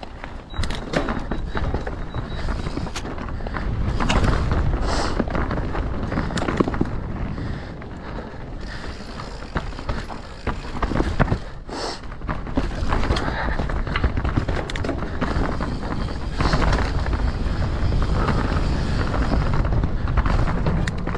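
Mountain bike ridden fast down a rough trail: wind buffeting the microphone, tyres rolling over dirt and rock, and frequent sharp rattles and knocks from chain and frame over bumps.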